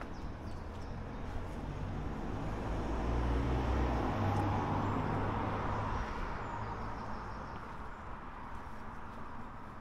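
A motor vehicle passing by on the road: engine and tyre noise swell up to a peak in the middle and fade away again.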